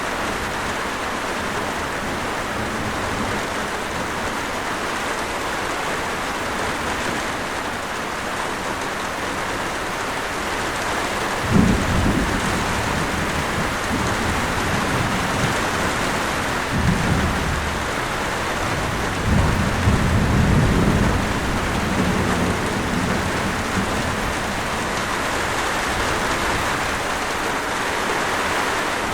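Steady rain falling, with thunder rumbling low about a third of the way in and twice more shortly after the middle.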